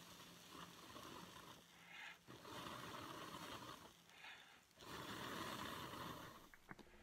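Long breaths blown steadily into a cupped tinder bundle of dry wood shavings, three blows of about two seconds each with short pauses between, fanning a glowing ember toward flame.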